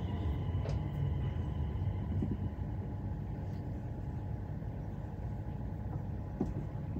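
Cabin of an Öresundståg electric train slowing to a stop, with a steady low rumble from the running gear. A faint steady whine fades out about a second in, and a few light clicks sound.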